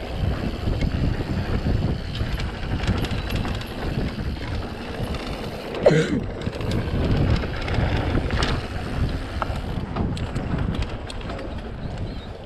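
Mountain bike riding fast down a dirt singletrack: wind buffeting the microphone, tyres rolling over packed dirt, and frequent clicks and rattles from the bike over bumps. A short, sharp, louder sound comes about halfway through.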